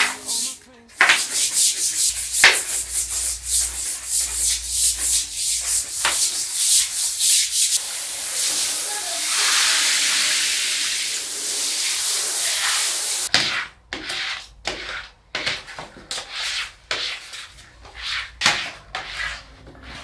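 Small stiff-bristled hand brush scrubbing a wet ceramic tile floor, quick repeated scratchy strokes. In the middle, the strokes give way to a steady hiss for about five seconds before the scrubbing resumes.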